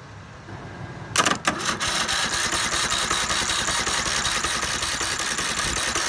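Electric starter motor on a Troy-Bilt riding mower's engine, powered straight from a truck battery, kicks in about a second in and spins the engine over steadily and fast, with an even, rapid beat and a hiss. The spark plug is out, so the engine turns freely and cannot fire.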